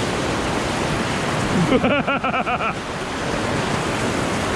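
Rushing whitewater of a Class III river rapid, a steady wash of noise. About two seconds in, a brief voice calls out over it for about a second.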